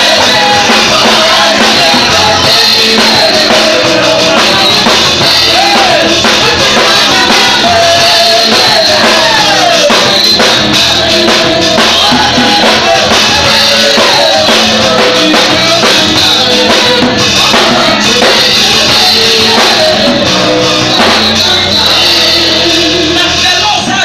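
Loud church worship music: a man's amplified voice singing through a microphone over drums and keyboard.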